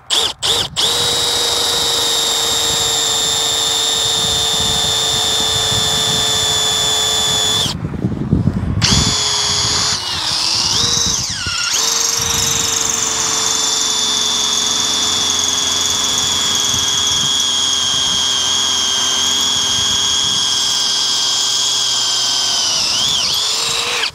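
Cordless drill boring a hole through steel framing, its motor whining at a steady high speed. A few short trigger taps come first, then a long run. It stops briefly about eight seconds in and wavers in pitch for a couple of seconds as the bit is worked. A second long steady run stops just before the end.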